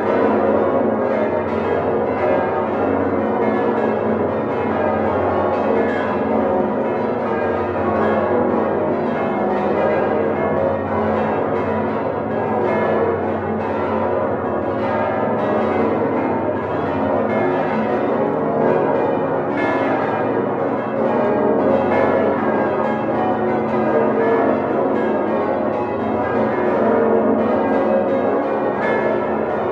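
Full peal of the Domtoren's hand-rung swinging church bells, all ringing together, heard from inside the bell chamber: a dense, unbroken clangour of overlapping strikes at many pitches.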